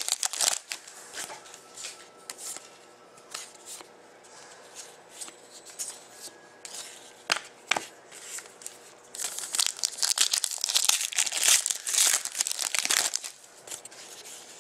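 Foil wrappers of Panini Contenders hockey-card packs crinkling and rustling as cards are handled, with scattered sharp clicks. From about nine seconds in comes a few seconds of loud, dense crinkling and tearing as a fresh foil pack is ripped open.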